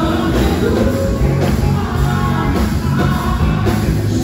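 Live band music with a man singing lead into a handheld microphone, over drums and a heavy bass line keeping a steady beat.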